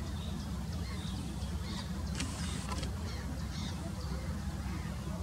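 Black-headed gulls calling: faint, scattered short high cries from the flock over a steady low rumble.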